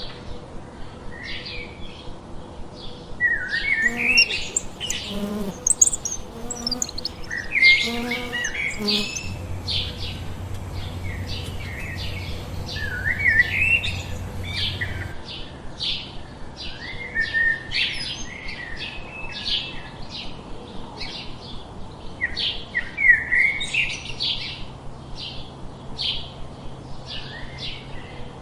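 Several small birds chirping and singing in a busy chorus of short, repeated notes and warbles. A few lower, pulsed calls come in between about four and nine seconds in.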